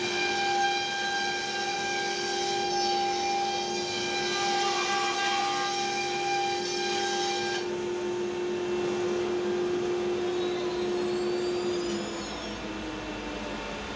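CNC router cutting poplar with a 1/4-inch bit in a HiTECO spindle at 24,000 rpm and a fast 528 inches-per-minute feed: a steady high whine over the constant rush of a dust collector. About twelve seconds in the whine falls in pitch and the level drops as the spindle slows, leaving the dust collector running.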